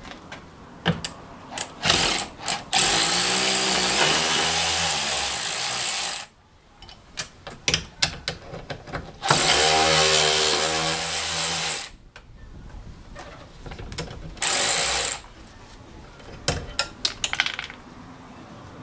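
Cordless power tool with a socket spinning out the bolts of a bracket under the scuttle tray, its motor pitch wavering. There are two runs of about three seconds each and a short third burst about fifteen seconds in, with light clicks and knocks of metal parts between.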